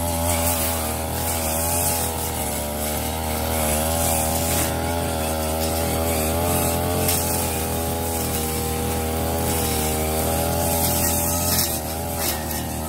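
Ogawa 33 cc brush cutter with a metal blade running hard, its engine pitch wavering up and down as it cuts through overgrown grass.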